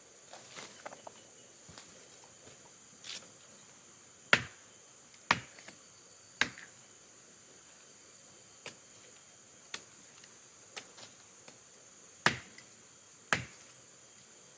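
Sharp chopping strikes of a blade into the bark of a bendo (terap) tree to draw its sap. There are five loud strikes, three about a second apart and then two more later, with softer taps between. A steady high insect drone runs under them.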